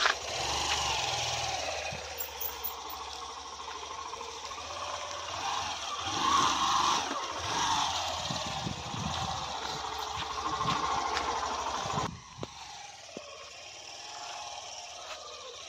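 Motorcycle engine running while travelling along a rough dirt road. The sound drops suddenly about twelve seconds in, leaving a quieter steady noise.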